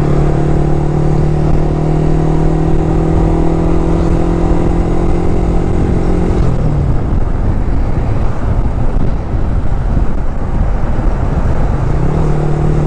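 Yamaha R15's single-cylinder engine running at a steady cruising note over heavy wind and road rush. About six and a half seconds in its note falls and fades, leaving mainly wind rush, and it comes back at the same steady pitch about twelve seconds in.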